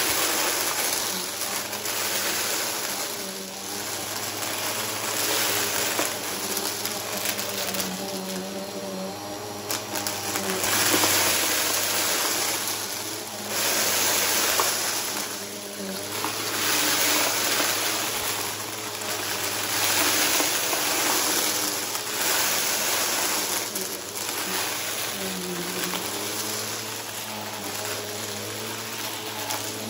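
Bissell upright vacuum cleaner running over a rug and sucking up a pile of confetti, the pieces rattling up through the nozzle. The steady motor hum sits under a rushing noise that swells and eases every few seconds as the vacuum is pushed and pulled.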